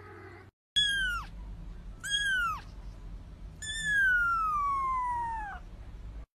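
A kitten meowing three times in high calls: two short meows that drop in pitch, then one long meow that slides slowly downward.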